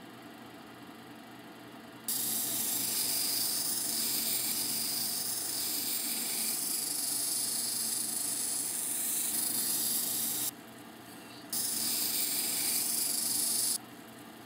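Tiger eye stone on a dop stick ground against a spinning soft 280-grit diamond wheel of a cabbing machine: a steady hiss while the stone is pressed to the wheel. The hiss starts about two seconds in, stops for about a second around ten seconds in as the stone is lifted off, resumes, and stops again near the end, leaving only the quieter run of the machine.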